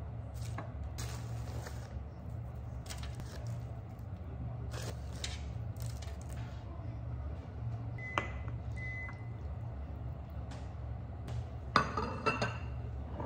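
Soft food-prep handling noises over a steady low hum: baking paper and a plastic zip bag of shredded cheese being handled, with two short electronic appliance beeps about eight seconds in. Near the end a metal baking tray clatters and rings as it is handled in an oven mitt.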